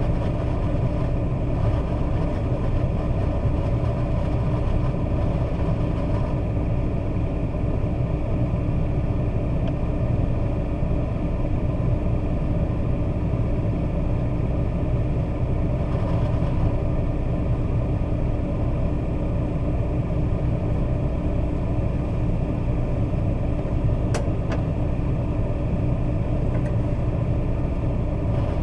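Vehicle engine running steadily with a low hum, and a single brief click near the end.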